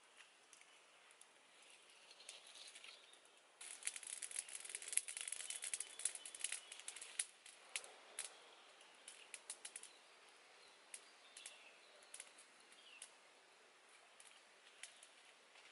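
Small wood fire of dry twigs crackling: a dense run of sharp snaps and pops for about four seconds from a few seconds in, then scattered single pops.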